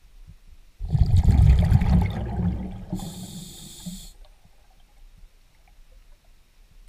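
Diver breathing through a scuba regulator, heard underwater through the camera housing. There is a loud burbling rush of exhaled bubbles for about two seconds, then a high hiss lasting about a second that stops suddenly.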